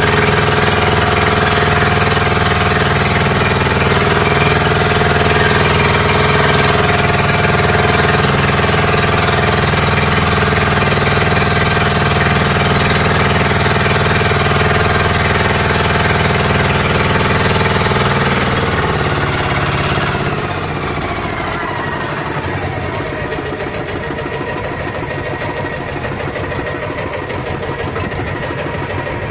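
Outrigger fishing boat's engine running loud and steady, then throttled back about two-thirds of the way through: its pitch falls and it settles into a quieter idle.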